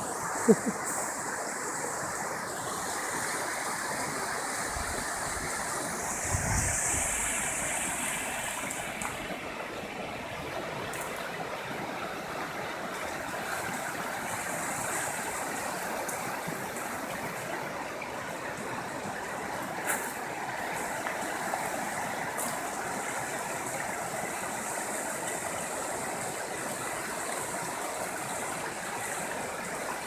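Shallow river rushing steadily over rocks in a stretch of rapids, a continuous even wash of water noise. A sharp knock sounds about half a second in.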